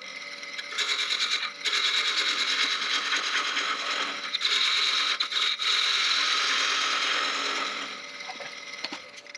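Wood lathe running with a turning tool cutting into the end of the spinning wooden blank, a steady motor hum under dense scraping. The cutting eases off near the end while the motor keeps running.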